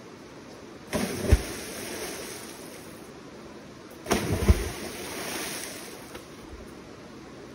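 Two heavy splashes of people cannonballing into a river pool, one about a second in and one about four seconds in, each a sharp slap into the water followed by a short wash of spray.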